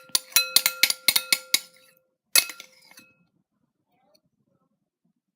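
Metal spoon clinking against a soup bowl: about a dozen quick strikes in the first couple of seconds and one more a moment later, the bowl ringing after each.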